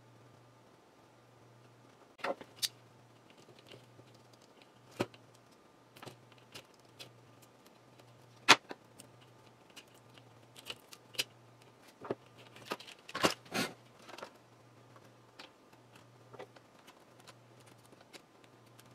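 Scattered clicks and rustles of insulated hookup wire being handled and worked with pliers on a tabletop. The sharpest click comes about halfway through, and a quick cluster of clicks follows about two-thirds of the way in.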